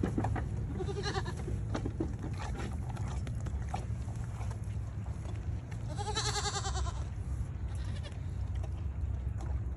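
Goats bleating: a short bleat about a second in and a longer, wavering bleat about six seconds in.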